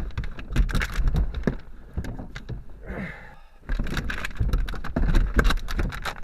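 Scuffling struggle inside a car cabin: bodies thumping against the seats and door, with rapid clicks and rattles of a seatbelt being unbuckled, in two bouts with a short lull between.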